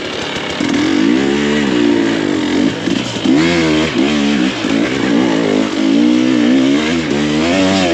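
2024 KTM 300 XC-W's two-stroke single-cylinder engine being ridden off-road, its revs rising and falling again and again with the throttle.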